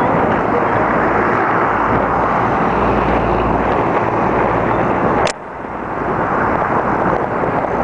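Wind rushing and buffeting over the microphone of a camera on a moving bicycle, a steady loud rush with deep rumble. About five seconds in, a sharp click comes with a sudden drop in level, which then swells back up.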